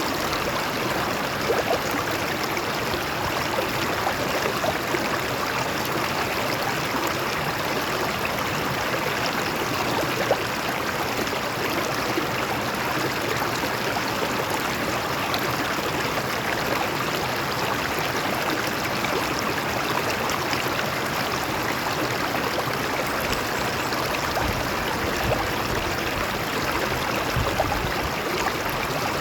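A stream of water running over rocks: a steady rush and splash with small irregular gurgles.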